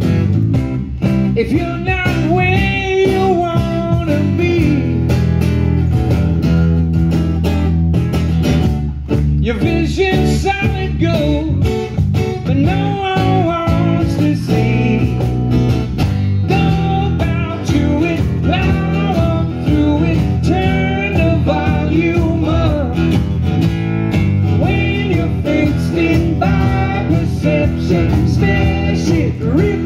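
Live acoustic rock song: two acoustic guitars strumming chords under a male lead vocal singing the melody.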